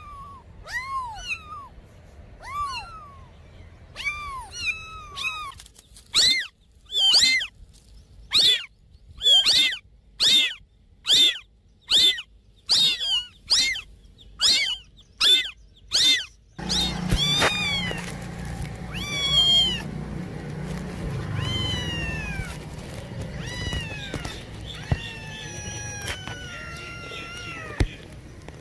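Domestic cats meowing: a few short meows, then about fifteen loud, short meows in a steady rhythm, a little under two a second, then longer, drawn-out meows that fall in pitch over background noise.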